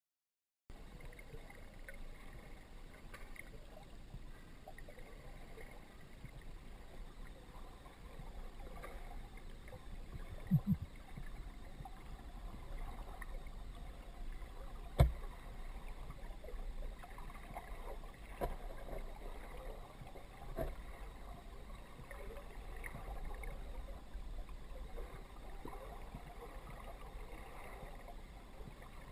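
Muffled underwater river ambience heard through a GoPro's dive housing: a steady low rumble of flowing water with faint crackles. A few brief knocks break it, the sharpest about halfway through.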